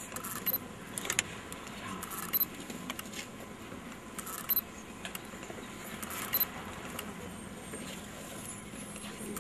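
Scattered short clicks and light rattles, a few seconds apart, over a steady low background noise.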